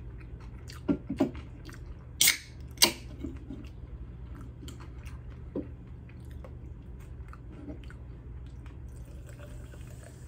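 Close-up chewing and crunching of chips, with a few sharp crisp crunches in the first three seconds. Near the end, Pepsi Zero is poured over ice into a glass jar, fizzing with a steady hiss.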